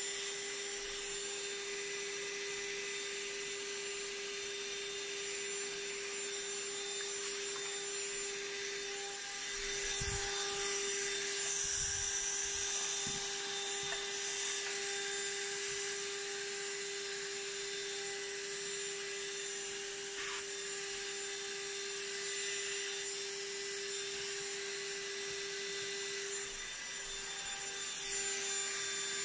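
Gtech cordless handheld vacuum cleaner running with a steady high-pitched motor whine as its nozzle sucks lint and thread ends out of the inside of an overlocker. A few soft bumps from the nozzle and handling come through around the middle.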